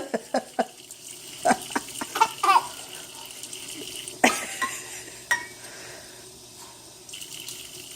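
Water splashing in a kitchen sink, with a series of sharp knocks and clatters as a toddler bangs things against the sink. The loudest knock comes about four seconds in, and the knocking stops after about five and a half seconds.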